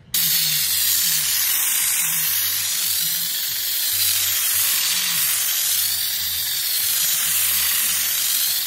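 Raptor Variable Gun spraying Raptor tintable bedliner paint on compressed air at about 50 PSI: a steady, loud hiss of air and atomised paint that starts suddenly as the trigger is pulled.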